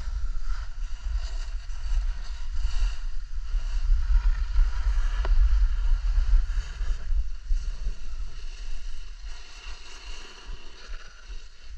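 Wind buffeting the microphone of a skier going downhill, over the hiss and scrape of skis sliding on snow. The rumble is strongest around the middle and eases in the second half, with one short click partway through.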